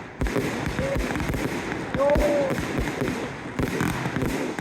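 Fireworks display: a dense, continuous run of bangs and crackling reports from aerial shells.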